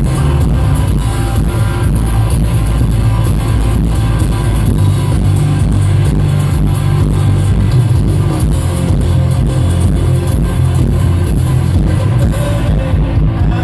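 Live rock band playing an instrumental passage with guitars and bass, loud and bass-heavy as picked up by a phone in the audience.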